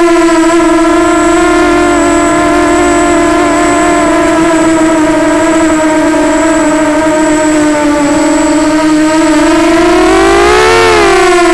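Walkera Runner 250 quadcopter's motors and propellers whining steadily in flight, rising and falling in pitch once near the end. A thin, steady high-pitched tone sits above it.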